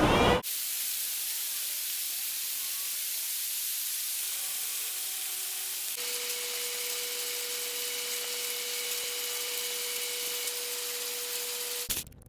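A steady high-pitched hiss of noise from a sound-effect recording. About halfway through its texture changes and a faint steady tone sounds beneath it, then it cuts off abruptly near the end as short clipped fragments begin.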